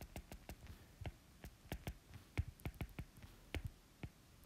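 A stylus tapping and ticking on a tablet's glass screen during handwriting: faint, irregular clicks, several a second.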